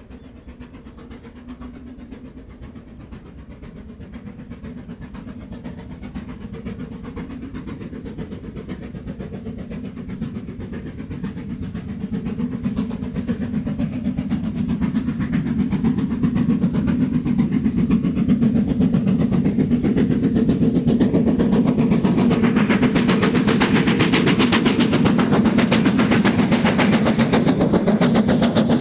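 Great Western Castle-class steam locomotive running at speed under heavy steam, its rapid exhaust beats and rumble growing steadily louder as it approaches and passes close by. Near the end the coaches' wheels clatter past over the rail joints.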